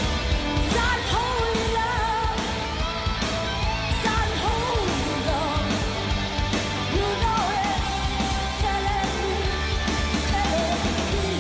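Live heavy metal concert recording: a woman singing with a rock band of distorted guitars, bass and drums, her sung notes wavering in pitch.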